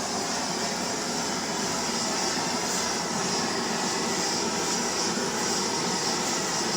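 Blowtorch flame burning with a steady rushing hiss, played onto butter in cookie dough to melt it.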